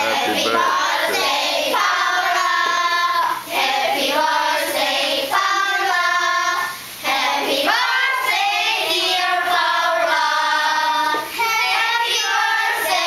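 A group of schoolchildren singing a song together in unison, in held phrases with brief pauses between them.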